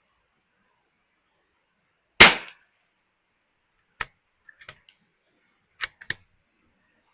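A single .22 LR shot from a Ruger Precision Rimfire bolt-action rifle about two seconds in, a sharp crack with a short tail. It is followed by a few quieter sharp clicks and clacks as the bolt is worked to eject the case and chamber the next round.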